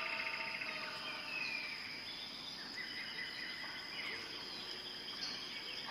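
Jungle ambience: a steady high insect drone under several birds calling with short chirps and sliding whistles, and a fast rattling trill during the first second.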